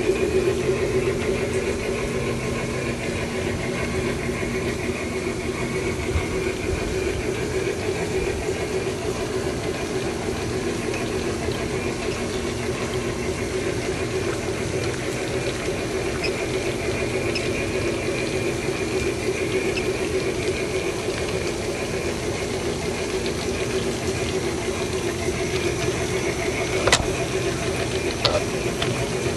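Bachmann three-truck Shay large-scale model steam locomotive running along the track: a steady mechanical drone from its motor and gearing. Two sharp clicks come near the end.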